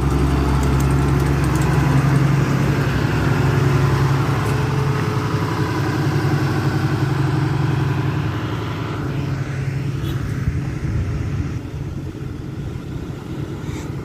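Engine of an asphalt road roller running as it backs up. It is loudest in the first few seconds and grows gradually fainter over the second half.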